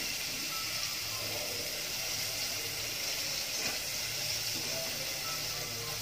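Chicken wings deep-frying in hot oil in a pot, a steady sizzling hiss, while a metal slotted spoon turns them. This is the second fry at higher heat that crisps the skin.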